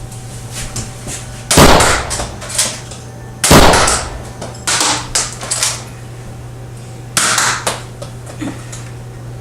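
Shots in a Nerf gun battle: a run of sharp bangs, the two loudest about one and a half and three and a half seconds in, with several smaller ones after.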